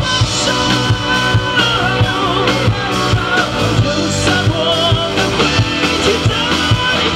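Live rock band playing: a drum kit keeps a steady beat about twice a second under electric guitar, with a wavering lead melody on top.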